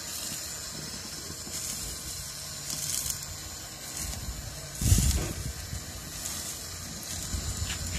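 Gas grill hissing under sirloin roasting on a rotisserie spit, with short flares of sizzling now and then as fat drips onto the flames. A dull low thump comes about five seconds in.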